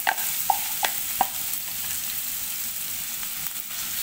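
Chopped onions and garlic sizzling steadily in hot oil in a non-stick wok. A wooden spatula stirs them, with a few short clicks against the pan in the first second and a half.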